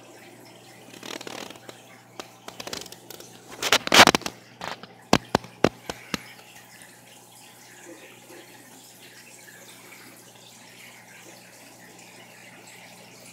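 Steady trickle of aquarium water with a faint low hum, broken between about one and six seconds in by a cluster of sharp clicks and knocks, the loudest in the middle, then a quick run of short clicks.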